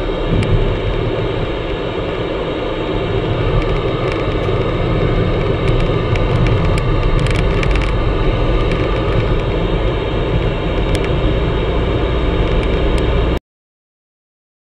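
Road and engine noise inside a moving car, a steady rumble as the car joins a motorway. It cuts off abruptly just over a second before the end.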